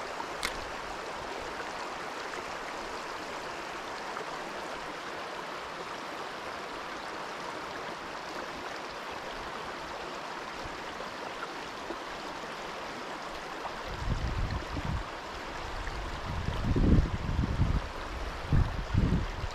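Shallow river water running over a rocky riffle, a steady rushing. There is a single sharp click about half a second in. From about two-thirds of the way through, loud, irregular low rumbling bumps come in over the water.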